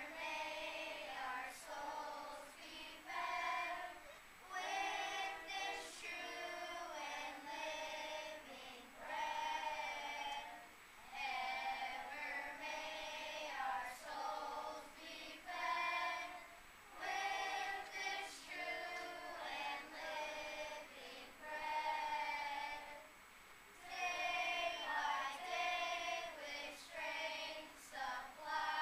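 Children's choir singing, phrase after phrase with short breaks between them.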